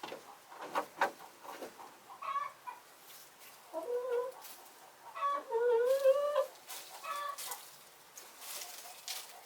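Domestic hens clucking, a series of short clucks with two longer drawn-out calls in the middle, the louder one wavering in pitch.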